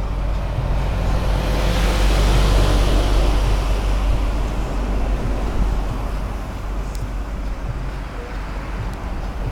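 Semi-trailer truck passing close alongside in slow traffic: a rush of tyre and engine noise over a deep rumble that swells to its loudest about two to three seconds in, then fades away.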